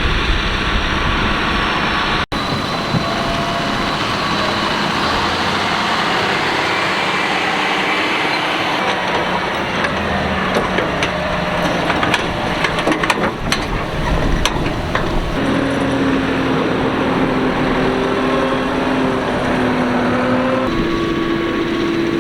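Farm tractors' diesel engines running under load, with the clatter of harvesting machinery. A run of sharp clacks falls in the middle, and the engine pitch shifts near the end.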